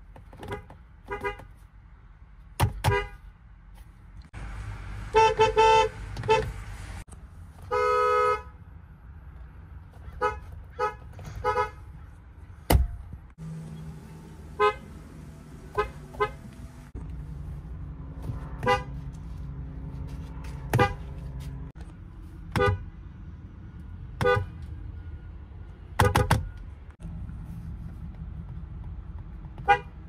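Car horns of a series of different cars, among them a Lexus and Toyotas, pressed one after another. Most are short single beeps, with a longer honk of about a second and a half around five seconds in and another shorter held honk at about eight seconds.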